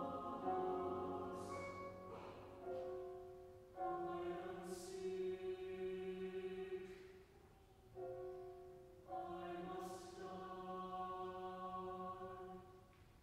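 Mixed choir singing slow, sustained chords in phrases separated by brief breaths, with sharp 's' consonants cutting through three times; the sound lingers in a reverberant church. The last chord fades away near the end.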